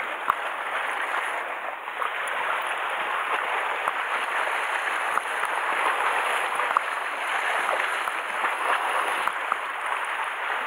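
Sea water washing and sloshing against the rocks of a narrow shoreline inlet: a steady wash of noise with faint scattered ticks of small splashes.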